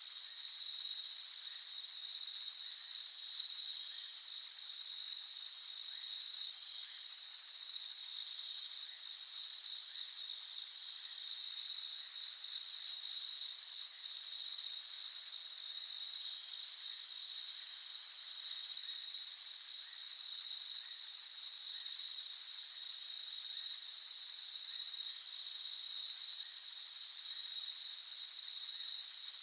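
Crickets chirping: a steady run of rhythmic chirps, joined every few seconds by a higher, continuous trill that starts and stops.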